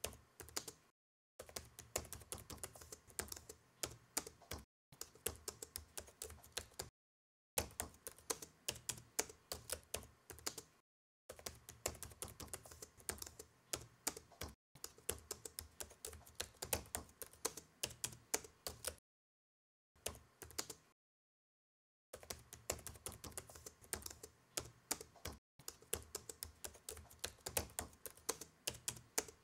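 Typing on a laptop keyboard: runs of quick key clicks that stop dead for short silent spells several times.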